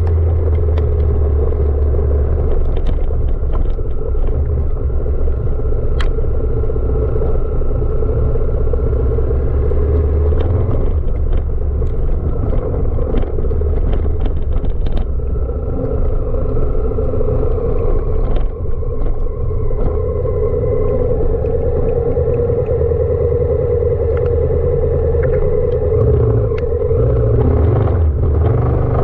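Honda Africa Twin CRF1000 DCT's parallel-twin engine running steadily at low speed on a rough off-road track, its pitch drifting a little, with scattered sharp clicks and knocks over the rumble.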